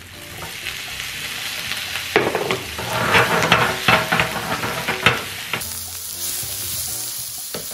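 Shrimp, onion and garlic sizzling in a nonstick frying pan. From about two seconds in the sizzle grows louder, and a spatula scrapes and taps against the pan in quick strokes as the food is stirred until about five seconds. A steady sizzle then continues.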